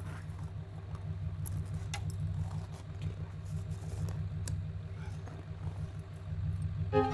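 Steel tire chain links clinking in light, scattered clicks as the chains are fitted and tightened on a van's tire, over a steady low idling engine.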